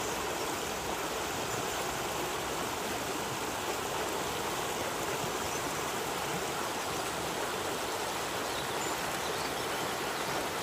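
Running water from a stream: a steady, even rush with no breaks.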